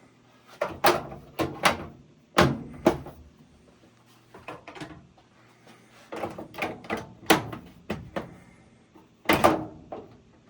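End caps being fitted back onto a Kenmore/Whirlpool direct drive washer's control panel: a series of irregular sharp clicks and knocks, with a cluster of them about six to eight seconds in.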